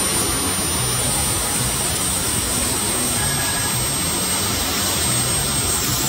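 A handheld 70 mm ducted jet fan on a 6-cell battery running flat out. It makes a loud, steady rush of air with a thin high-pitched whine over it.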